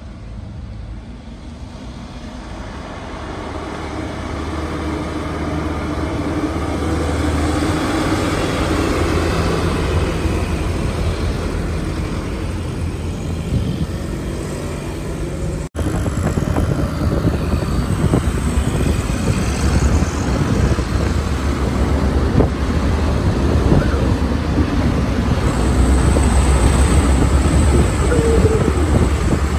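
Diesel truck engine growing louder as a truck approaches, with a motorcycle passing close by. After a sudden cut about halfway through, steady truck engine and road noise come from close behind a truck loaded with sugarcane.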